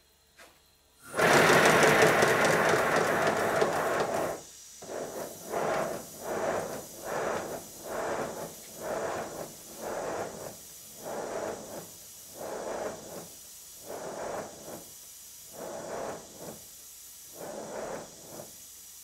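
LBSC 'Speedy' model steam locomotive on bench rollers: about a second in, a loud hiss blows for about three seconds, then it settles into regular exhaust beats from the cylinders, about one and a half a second, slowing a little near the end. The engine is running properly now that its cylinders and valves have been repaired.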